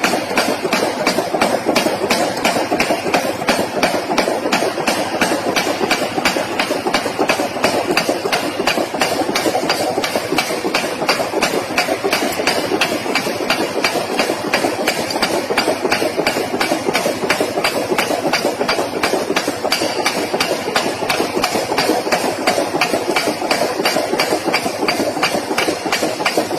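Forging power hammer striking hot metal in a fast, steady run of repeated blows.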